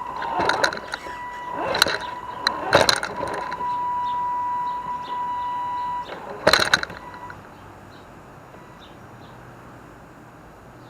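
Axial SCX10 RC rock crawler's electric motor and gears whining at a steady pitch while the truck clatters over rocks with several sharp knocks, picked up by a camera on its hood. The whine stops about six seconds in, followed by one last loud clatter, and then it goes quieter.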